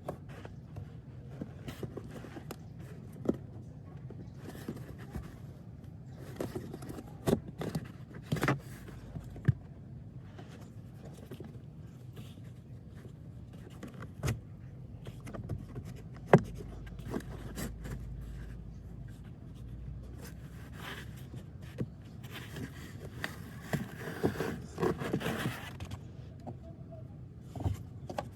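Plastic clicks, knocks and scraping from hands working the cabin air filter housing and its trim under the dashboard. The clicks come one at a time, then a longer run of scraping and rustling comes near the end.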